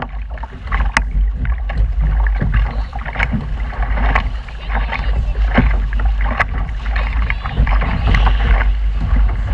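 Wind buffeting the camera microphone in a steady heavy rumble, with water slapping and splashing against the hull of a small sailboat under way.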